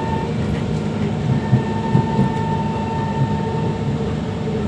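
Kawasaki C151 metro train with GTO chopper traction running between stations, heard from inside the car: a steady rumble of wheels on track with a steady high whine over it. Two short knocks come about one and a half and two seconds in.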